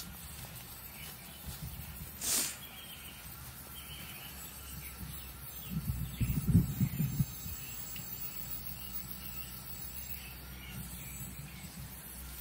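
Outdoor ambience with small birds chirping faintly and repeatedly. A brief rush of noise comes about two seconds in, and a choppy burst of low thumps, the loudest sound, comes around six to seven seconds in.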